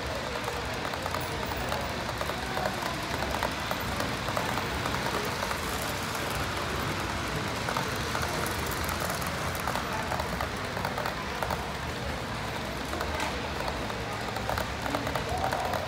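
Model freight train rolling along the track, its wheels clicking steadily over the rail, against a steady background hubbub of people.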